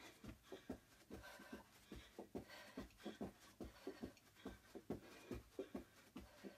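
Soft, quick, rhythmic thuds of sneakered feet landing on a rug during mountain climbers, about four a second.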